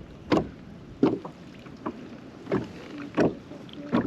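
Water slapping and knocking against a plastic fishing kayak's hull in short, sharp splashes, about one every three-quarters of a second.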